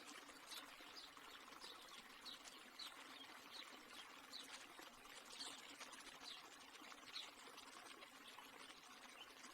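Near silence: a faint hiss with light, irregular ticks.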